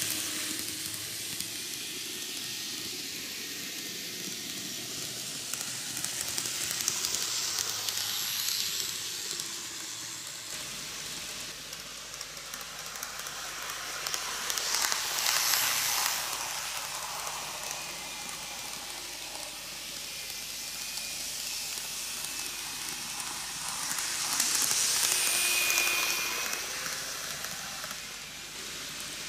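N-gauge model train running on plastic-roadbed track: a steady hissing whir of its small motor and wheels on the rails that swells three times as the train comes round past the microphone.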